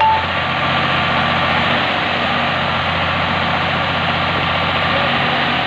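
Tractor diesel engine running steadily while its hydraulics tip the trolley bed up to dump a load of soil.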